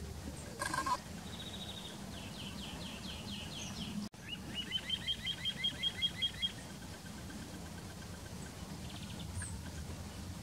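Little ringed plover's territorial song given in flight: a rapid series of sharp, repeated notes, about six a second, lasting some two seconds. Before it, a short harsh sound and a run of quick bird notes.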